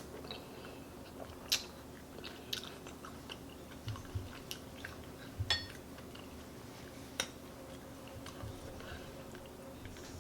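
Close-miked chewing and lip-smacking of spicy chicken noodle soup with vegetables, with scattered wet mouth clicks. A short ringing clink comes about halfway through, over a faint steady hum.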